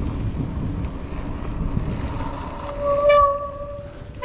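Mountain bike disc brake squealing as the bike comes to a stop: one steady pitched squeal that swells about two and a half seconds in and lasts about a second and a half, over a low rumble of wind on the microphone.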